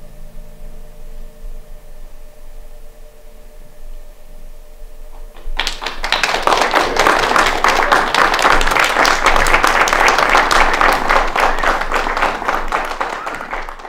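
The final chord of a classical guitar rings and fades away, then an audience applauds, the clapping starting suddenly about five and a half seconds in and going on steadily.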